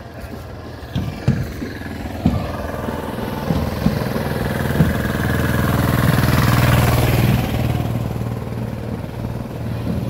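The engine of a small open farm utility vehicle runs as it drives past. It grows louder to a peak about six to seven seconds in, then fades. A few short knocks come earlier.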